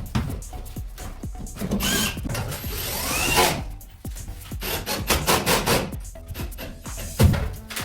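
Tool and handling noises from air-conditioner installation work: knocks, scraping and rubbing, with a short rising whine like a power tool spinning up about three seconds in.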